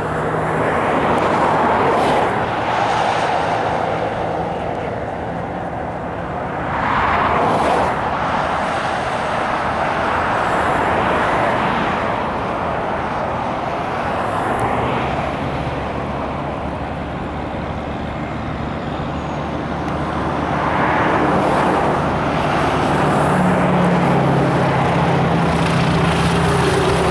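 Radial engine of a biplane running at low throttle on its landing approach, a steady drone under a rushing noise that swells and fades several times. Near the end, as it rolls out after touchdown, the engine's steady hum grows louder and clearer.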